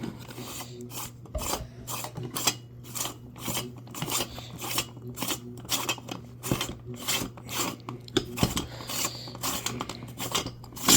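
The threaded stator of a hand-cranked air raid siren being unscrewed by hand: repeated rasping scrapes of metal on metal, a few strokes a second in an uneven rhythm.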